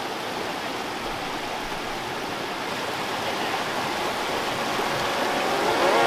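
Mountain creek rushing and splashing over boulders: a steady rush of water that grows gradually louder.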